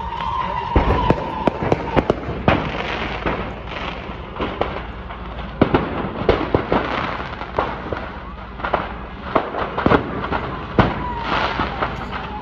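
Fireworks from a burning stockpile going off: an irregular string of sharp cracks and pops, at times several a second.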